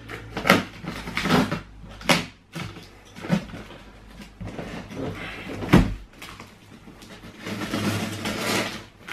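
Packing tape on a large cardboard box being cut with a knife and pulled at by hand: a string of short scratchy slicing and tearing noises, a sharp thump against the box a little past the middle, and a longer tearing stretch near the end.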